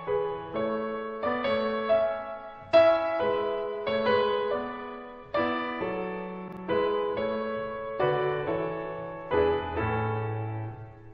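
Background music: a slow, gentle piano piece, each note or chord struck and left to fade.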